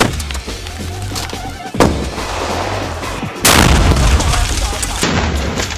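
Three explosion blasts over electronic music with a heavy bass beat: one at the start, one about two seconds in, and the loudest about three and a half seconds in, with a long rumble after it.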